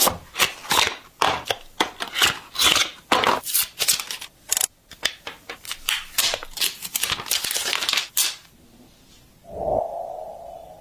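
Smartphone packaging being opened: a quick run of cutting, tearing and crinkling strokes on the box's seal and plastic wrap, then a single ringing tone near the end that fades away.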